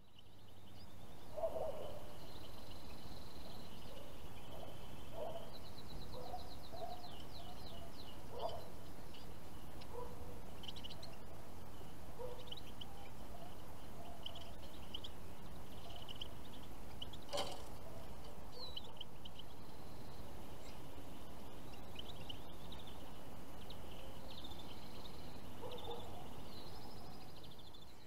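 Small finches chirping and twittering in short calls and quick trills, over a steady outdoor background noise. One sharp click about two-thirds of the way through.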